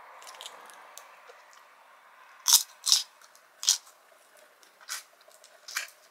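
Boiled shrimp being peeled and eaten: after a faint start, five sharp crunches of shrimp shell cracking and biting come in the second half, the first the loudest.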